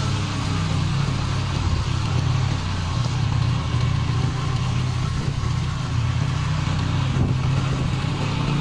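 Motorcycle engine running steadily while riding, heard from the saddle, with a constant rush of wind and tyre noise on a muddy road.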